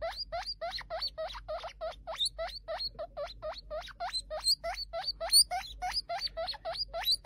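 A guinea pig wheeking: a fast string of short rising squeals, about four a second.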